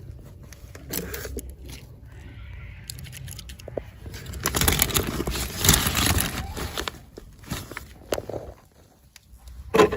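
Toy packaging being handled and opened: crinkling, scraping and tearing, loudest for a few seconds in the middle, with a sharp click near the end.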